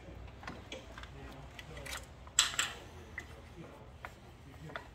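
Parts of a NuPak 300 filler's lower plunger assembly being handled as a plunger head is taken off: a few light clicks and knocks, with a sharp clack about two and a half seconds in and a second one just after. A low steady hum runs underneath.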